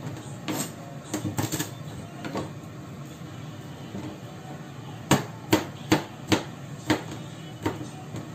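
Santoku knife slicing garlic cloves on a plastic cutting board, each cut ending in a sharp knock on the board. A few scattered knocks come in the first two seconds, then a steady run of about two to three a second from about five seconds in.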